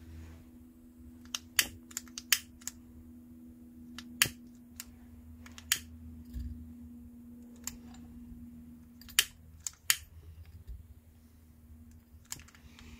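Long-reach lighter clicking about nine times at irregular intervals as it is held at the burner of a Barthel petrol camping stove, which does not catch; the owner puts the failure to ignite down to the stove being hot.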